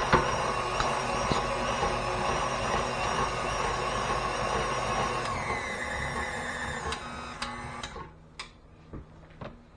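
KitchenAid stand mixer's motor running with the meat grinder attachment fitted, with a steady whine that steps down in pitch about five seconds in, then winds down and stops about eight seconds in. A few light knocks follow.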